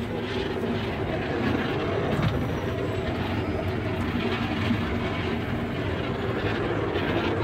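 Engine of a vintage-car amusement ride vehicle running steadily and a bit loud as it drives along its guided track.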